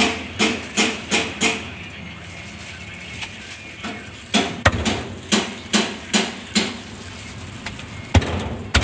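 Meat cleaver chopping through a roast chicken onto a thick round wooden chopping block: sharp, quick chops about two or three a second. A first run of about five chops, a pause of about two seconds, a second run of about seven, and two more chops near the end.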